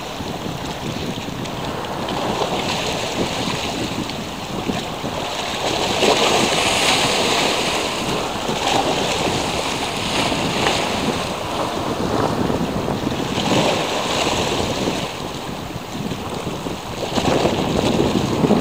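Sea waves washing in a continuous rush that swells and ebbs every few seconds, loudest about six seconds in and again near the end, with wind buffeting the microphone.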